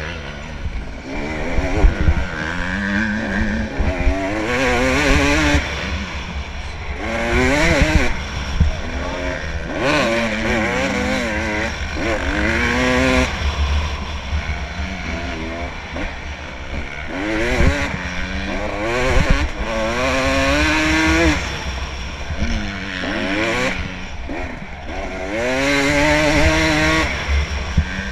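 Dirt bike engine revving hard at race pace. Its pitch climbs and drops again every couple of seconds as it runs up through the gears and shifts, over a constant low rumble.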